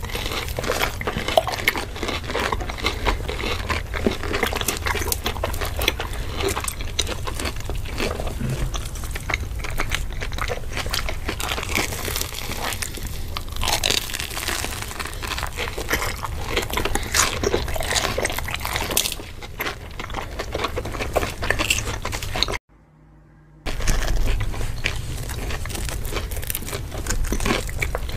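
Close-miked crunching and chewing of mozzarella corn dogs with a crisp, crumb-coated crust, two people biting and chewing at once in dense, irregular crackles. The sound cuts out for about a second near the end, then resumes.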